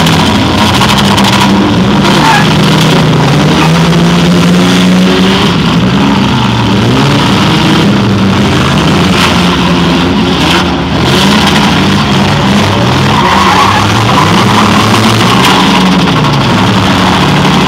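Several demolition derby cars' engines revving hard, their pitch rising and falling again and again as they rush about the arena. The sound is loud and runs without a break.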